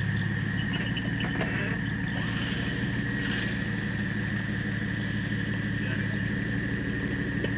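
4x4 off-road vehicle's engine running steadily at low revs as it crawls through brush, with a steady high-pitched whine above it and a few faint clicks.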